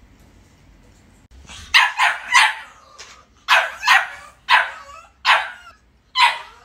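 English bulldog puppy barking in short, sharp yaps, about eight of them, starting almost two seconds in. It is shut in its wire crate, left alone.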